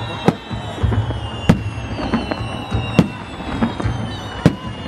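Fireworks going off overhead: four sharp bangs of bursting shells about a second and a half apart, with smaller pops and crackle between them.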